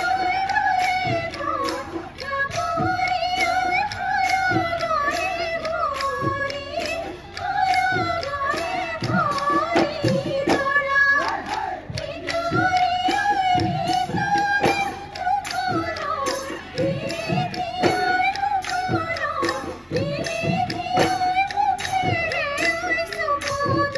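Live Assamese Bihu music: a Bihu song sung in long rising-and-falling phrases over dhol drums beating a steady rhythm.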